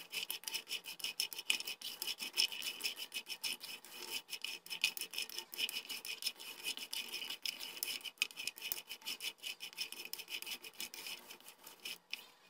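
Almonds, walnuts and sesame seeds being stirred with a spoon in a dry frying pan: rapid scraping and rattling strokes as the nuts and seeds slide over the pan, dry-toasting on low heat.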